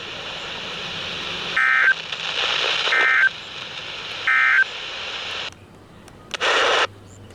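EAS end-of-message (NNNN) data bursts: three short, identical two-tone digital screeches about 1.3 s apart, over steady radio hiss, closing a NOAA Weather Radio alert. The hiss cuts off about five and a half seconds in, and a brief louder burst of sound follows near the end.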